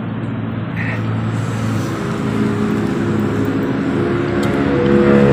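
A road vehicle's engine running as it goes by, a steady hum that slowly rises in pitch and grows louder toward the end.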